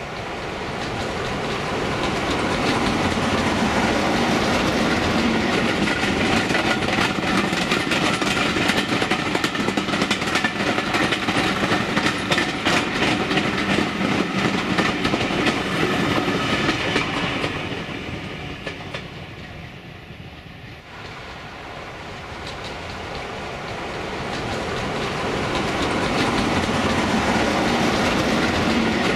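Diesel-hauled passenger train passing, with the clickety-clack of wheels over rail joints over the steady running of a BR Peak-class diesel locomotive. The sound builds over the first few seconds, fades away about two-thirds through, then builds again toward the end as a train comes near once more.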